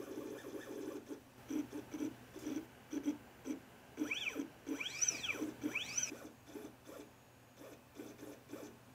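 Stepper motor turning a lead screw that slides a lens carriage on ball bearings along a steel rail, making a buzz in short repeated moves about twice a second. About four seconds in, three moves give a whine that rises and falls in pitch as the motor speeds up and slows.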